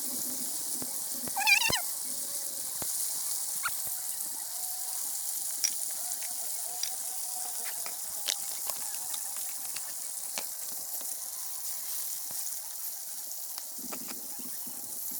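Campfire crackling under a pot of food cooking: a steady sizzling hiss with scattered sharp pops. A brief high warbling call sounds about a second and a half in.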